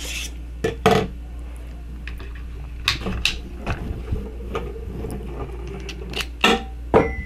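Small hard clicks and taps as tiny screwdriver bits are pulled from their holder and a bit is pushed into the magnetic tip of a mini electric screwdriver, over a low steady hum. A thin steady high tone starts near the end.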